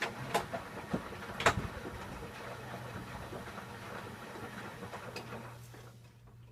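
Candy Aquamatic 1000T compact washing machine running an empty descaling wash, with a few sharp knocks in the first two seconds. Its running noise drops away about six seconds in, leaving a low steady hum.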